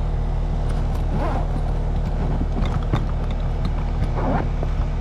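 Steady low hum of a running outdoor air-conditioning unit, with a few light clicks and knocks over it.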